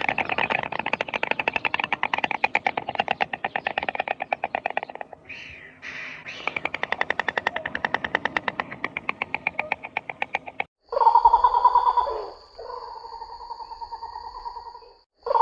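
An animal's rapid rattling call, many even pulses a second, with a short break about five seconds in. About eleven seconds in it gives way to a different, steady pitched call.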